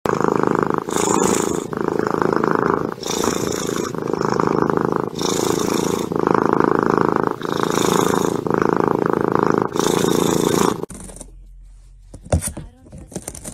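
Domestic cat purring loudly and close, in an even rhythm that changes about once a second with each breath in and out. It stops abruptly near the end, leaving a few faint clicks and rustles.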